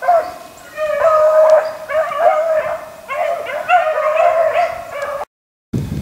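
A pack of beagles baying on a rabbit's trail: several overlapping drawn-out howling voices, the hounds in full cry. The baying stops abruptly about five seconds in.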